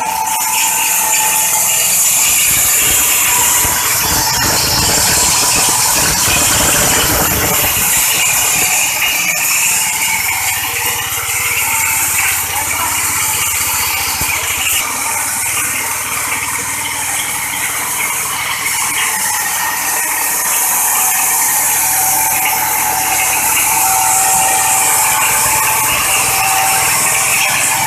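Stainless steel disk mill grinding corn kernels into flour, driven by a small petrol engine: a loud, steady rattling grind.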